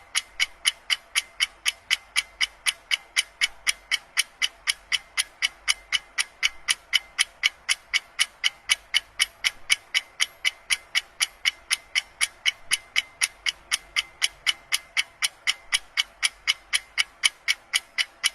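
Clock ticking fast and evenly, about three to four sharp ticks a second at a steady rate: a sped-up tick-tock sound effect.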